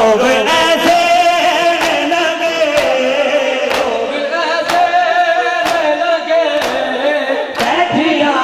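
Male voices chanting a noha, a Shia mourning lament, over a crowd of mourners beating their chests in unison, one sharp slap about every second.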